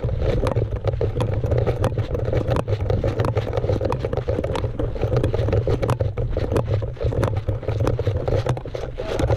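Quick, irregular crunching footsteps on dirt and gravel with the rifle and gear rattling, heard close on a body-mounted camera over a steady low rumble of handling noise.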